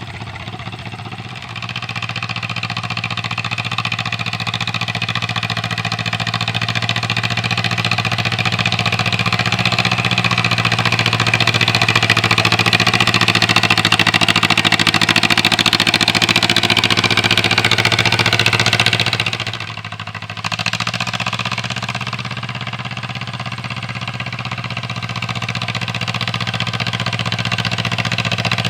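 1947 John Deere M tractor's two-cylinder engine running steadily and running well after a hard start. It grows louder toward the middle and drops off briefly about twenty seconds in.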